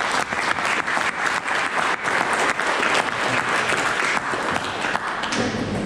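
Audience applauding: many hands clapping at once, dying away about five seconds in.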